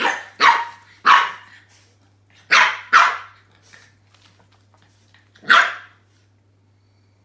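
French bulldog puppy giving six short barks at a new toy ball that it is wary of. The first three come in quick succession, then a pair, then one more.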